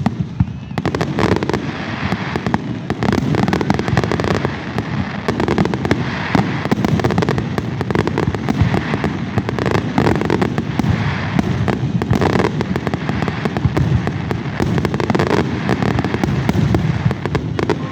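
Fireworks display in full barrage: many rapid, overlapping bangs with no pause between them.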